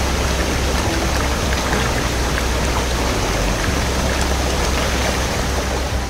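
A rain-fed stream of water flowing and gurgling, a steady, even rush of water.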